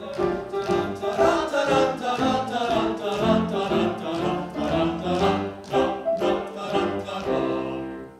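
Operatic singing with instrumental accompaniment, in a steady pulse of about two beats a second, dying away near the end.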